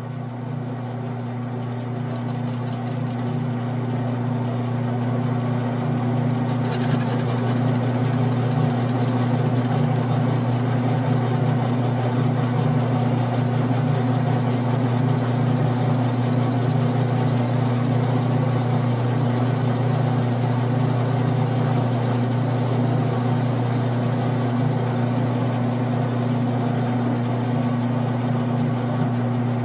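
Grizzly G9972Z bench lathe running at a steady speed while its tool takes a facing cut across a spinning 6061 aluminum disc: a steady motor-and-gear hum that grows louder over the first few seconds, then holds.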